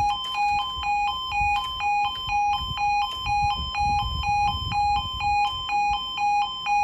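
Railway level crossing warning alarm sounding steadily, a two-tone electronic alarm switching between a low and a high tone about twice a second, as the barriers lift to reopen the crossing.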